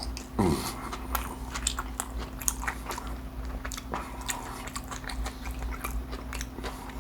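Close-miked mouth sounds of biting and chewing crispy fried fish tacos: irregular crunches and wet chewing clicks, over a steady low hum.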